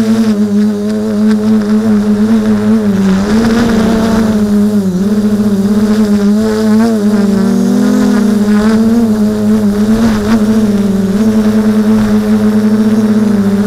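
Drone's electric motors and propellers buzzing loudly, heard close from its onboard camera; a steady pitched hum whose pitch wavers slightly up and down as it manoeuvres, with a few brief gusts of rushing noise.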